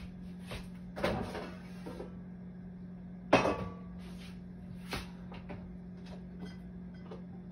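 A few knocks and bumps of objects being handled in a kitchen: a short clatter about a second in, and the loudest, a sharp knock with a brief ring, a little after three seconds, all over a steady low hum.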